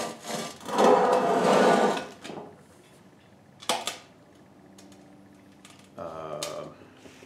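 Steel-shelled propane forge being tipped onto its side and shifted on a steel workbench: a loud scraping of metal on metal for about a second, then a single sharp knock a couple of seconds later.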